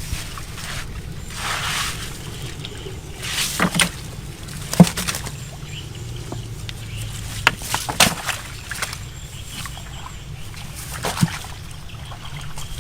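Water sloshing and splashing, with a handful of sharp slaps spread through it over a steady low rumble.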